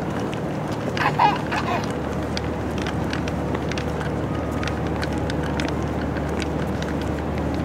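Steady hum of outdoor city background noise, with light scattered ticks of footsteps on paving stones and a brief voice sound about a second in.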